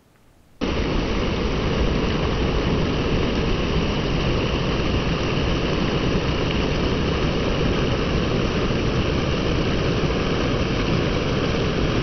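Waterfall, a gusher, rushing in a loud, steady roar of water that cuts in suddenly about half a second in.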